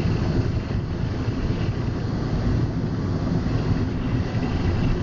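Automatic car wash running around the car, heard from inside the cabin: a loud, steady rushing noise.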